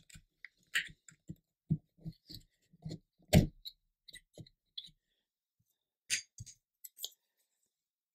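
Irregular light clicks and knocks of laser-cut wooden stand parts and a plastic model jet being handled and set down on a cutting mat, the loudest knock a little over three seconds in, with a short pause before a last cluster of clicks.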